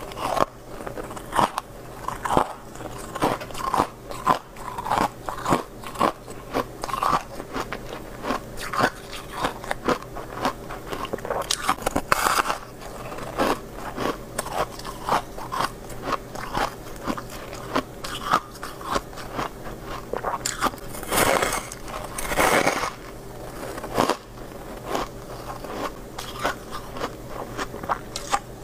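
Freezer frost being bitten and chewed: a steady run of crisp crunches, one or two a second, with a longer, louder stretch of crunching about three-quarters through.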